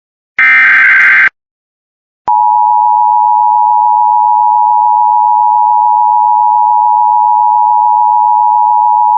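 Emergency Alert System broadcast: a one-second SAME digital header data burst about half a second in, then after a second of silence the steady EAS attention signal, a two-tone 853 and 960 Hz tone, starts and holds.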